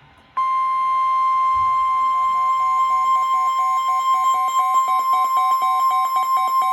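Weather radio alert tone: a loud, steady high-pitched tone comes on about half a second in, with a second, lower tone beeping about four times a second over it. It is the attention signal that comes before a broadcast weather warning.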